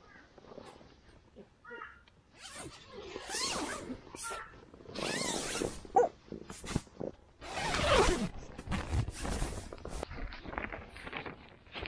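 Nylon tent fabric rustling and a tent door zipper being worked as someone climbs out of a dome tent, with a few drawn-out vocal groans mixed in, one falling in pitch about eight seconds in.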